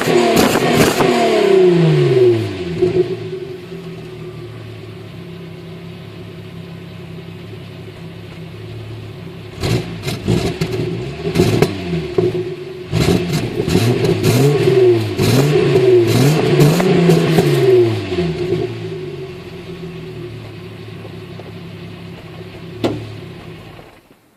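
Volkswagen Golf Mk3 VR6's stock 2.8-litre 12-valve V6 with its factory exhaust. Its revs drop back to a steady idle, then it takes a run of quick throttle blips from about ten to eighteen seconds in, and settles back to idle. A sharp tick comes near the end, and the sound cuts off just after it.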